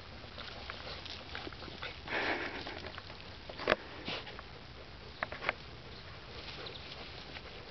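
Husky puppies digging in soil and sniffing at the hole: scattered scrapes and snuffles, with a sharp click a little before four seconds in.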